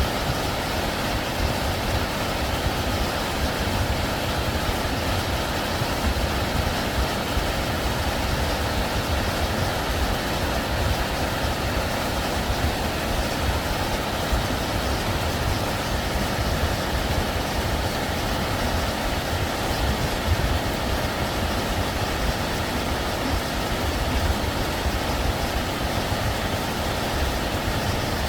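Steady rushing of a mountain stream beside the trail, even and unbroken, with a low fluttering rumble underneath.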